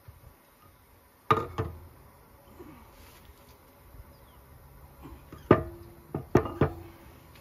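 Heavy steel parts of a John Deere 9500 combine's final drive clanking together as the new splined axle shaft is seated in its housing and a flanged cover is fitted over it. Two sharp knocks come about a second in, then four more near the end, two of them ringing briefly.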